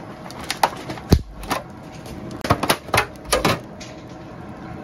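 Clear plastic clamshell food tray being pried open: a quick series of sharp plastic clicks and crackles as the snap lid comes free. The loudest click comes a little after one second in, and the clicks stop about three and a half seconds in.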